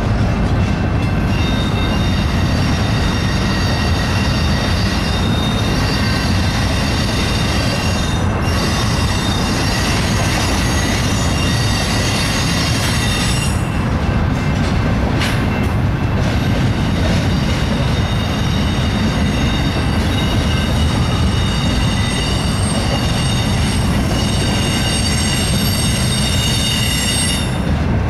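BNSF double-stack intermodal train rolling past, its well cars rumbling steadily on the rails while the wheels squeal in several steady high tones.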